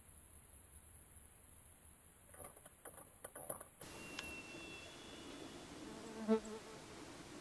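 A flying insect buzzes briefly past, about six seconds in; this short pitched buzz is the loudest sound. Before it come a few faint scattered clicks over quiet outdoor hiss.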